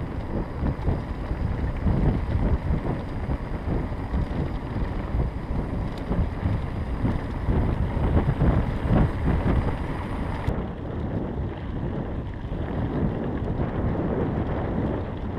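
Wind buffeting the microphone during a bicycle ride, a low, gusting rumble; the faint hiss above it drops away abruptly about ten seconds in.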